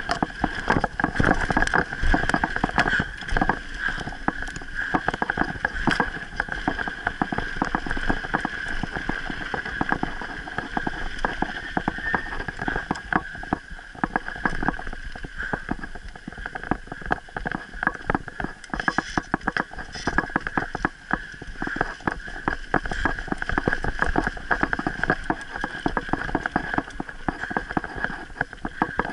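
Mountain bike rolling fast down a bumpy dirt trail: dense, irregular rattling and clattering of the bike over the rough ground, with a steady high-pitched hum underneath and a low rumble.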